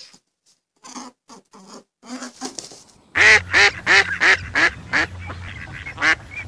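A duck quacking: a few quieter calls, then from about three seconds in a fast run of loud quacks, about three a second, each falling in pitch.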